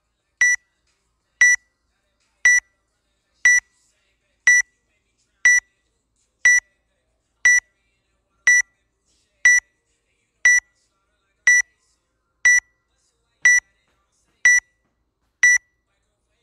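Countdown timer beeping once a second: short, identical high electronic beeps with dead silence between them, about sixteen in all.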